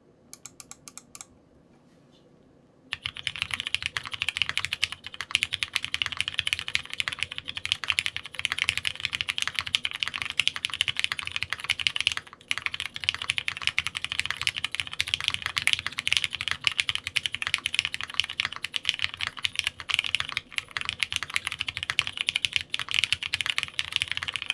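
Mechanical keyboard with Cherry MX Brown tactile switches being typed on. A few scattered keystrokes come first, then after about three seconds a fast, continuous stream of key clacks with one brief pause near the middle.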